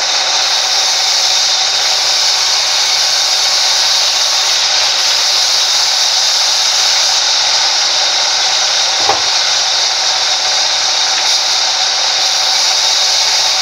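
Sawmill band saw running and cutting lengthwise through a log: a loud, steady, high-pitched hiss. A single short knock about nine seconds in.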